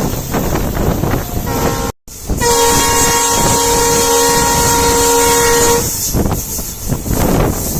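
Horn of an EMD WDP4D diesel locomotive sounding one steady long blast of about three and a half seconds, heard from the train behind it over the rushing noise of the wheels on the rails and wind on the microphone. The sound cuts out completely for an instant just before the blast.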